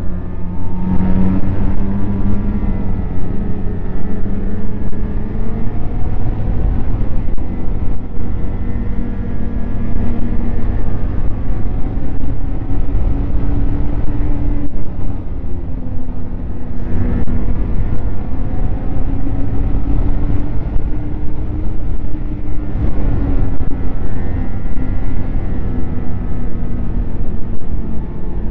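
Snowmobile running along a trail, its engine note slowly rising and falling with the throttle over a heavy low rumble.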